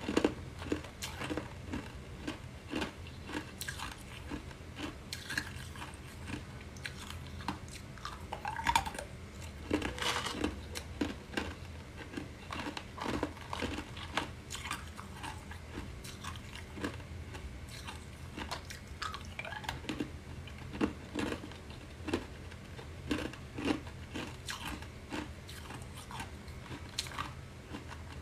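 Clear ice cubes being bitten and chewed: a continuous, irregular run of sharp crunches, a few much louder than the rest.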